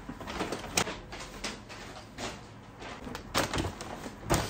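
Paper shopping bags rustling and crinkling as they are carried and handled, with a few sharp knocks in between.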